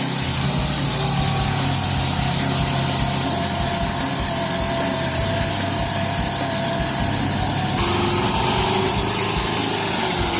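Heavy truck engine running steadily under load, its pitch drifting slightly and shifting down about two-thirds of the way in.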